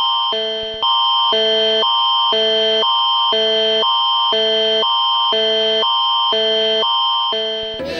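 Canadian Alerting Attention Signal (the Alert Ready tone): two chords alternating about twice a second over a steady high tone, loud and unbroken except for a brief dip just under a second in. It cuts off shortly before the end.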